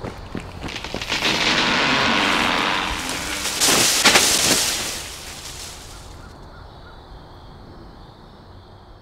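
Running footsteps crunching on dry leaf litter, then a loud rushing noise that swells about a second in, peaks in a sudden burst around four seconds in and fades away.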